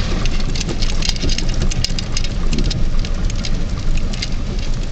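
Rain falling on a slowly moving vehicle: many small, quick drop ticks over the vehicle's steady low engine and road rumble.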